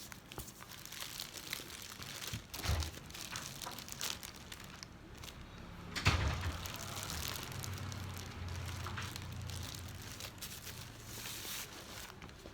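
Rustling and crinkling as the bag and its wrapping are handled, with scattered light clicks and a couple of soft knocks, the strongest about six seconds in.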